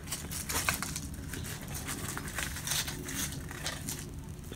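Foil-lined paper wrapper crinkling and a flaky pastry crust crackling as hands lift and fold a chicken patty: a quick, irregular run of crackles and rustles.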